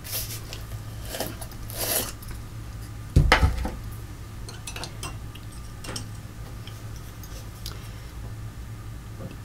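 Art supplies handled on a tabletop while gluing: a few short scrapes, a loud knock about three seconds in, then light clicks, over a steady low hum.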